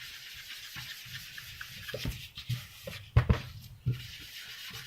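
Ink pad rubbed and dabbed on cardstock to darken its edges for an aged look: a dry, steady scuffing with a few soft knocks, the loudest just past the middle.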